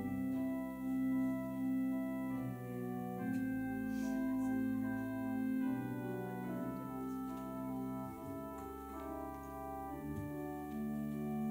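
Church organ playing a slow piece in sustained, held chords over a steady bass line, the chords changing every second or two.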